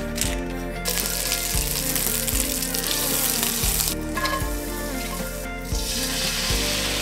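Minced garlic sizzling in hot fat in a stainless-steel frying pan as it is stirred with a wooden spatula. The sizzle comes in about a second in, eases briefly around four seconds, and swells again near the end as a liquid is poured from a bottle into the hot pan. Light background music plays throughout.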